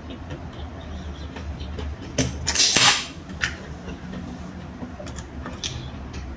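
Close-up eating and handling noises: peeling and chewing a boiled shrimp by hand, with a few small clicks and one loud, short, sharp hiss about two and a half seconds in, followed by a softer one.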